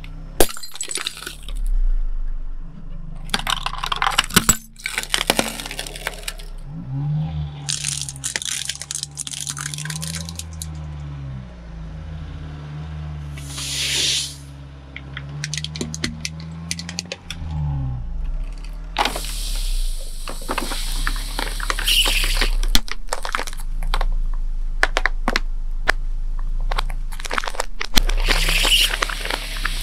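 A car tyre rolls onto objects on a bed of nails and crushes them: plastic crackles and snaps over the car's low engine note, and an aerosol can bursts with a short hiss about fourteen seconds in. Over the last ten seconds a Coca-Cola bottle is crushed on the nails and bursts, with cola hissing and spraying out among crackles.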